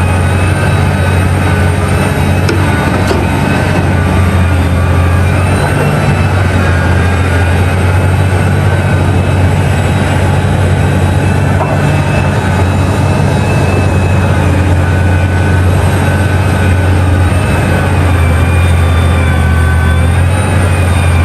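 Heavy mining machinery's large diesel engines running steadily: a loud, constant low drone with a faint steady whine above it.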